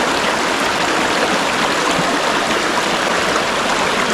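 Steady rushing of flowing creek water, an even hiss with no breaks.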